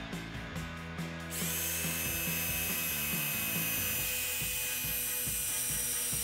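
Power drill driving a screw that won't go in, over background music; the drill runs steadily from about a second and a half in. The screw turns out to be faulty, which is why it won't drive.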